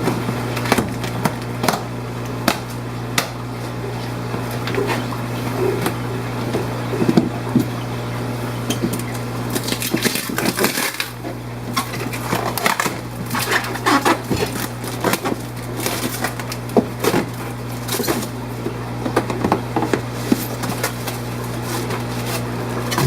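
Steady low hum of fish-room pumps and equipment, with irregular clicks, knocks and rustling as containers and bagged fish are handled. Louder rushing noise comes about ten and about eighteen seconds in.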